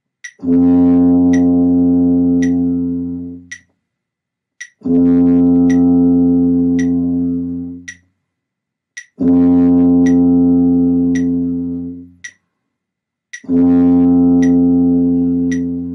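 Tuba playing four long, steady open-valve notes on a low concert F, each held about three and a half seconds with a short breath gap between, as beginner long-tone practice. A metronome clicks about once a second throughout.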